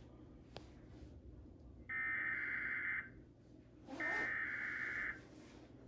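Emergency Alert System SAME header from a Comcast cable Required Weekly Test: two identical bursts of buzzy digital data tones, each about a second long and about a second apart, the first starting about two seconds in. These bursts are the coded header that opens an EAS alert.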